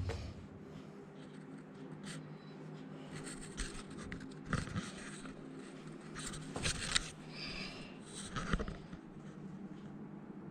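Faint scraping and scratching sounds, with a few light knocks about 4.5, 6.5 to 7 and 8.5 seconds in, over a low steady hum.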